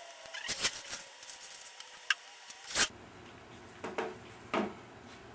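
Scattered sharp clicks and knocks of hardware being handled and fastened in a metal computer case, as a hard drive is screwed into its drive bay: about six separate taps, the loudest near three seconds in.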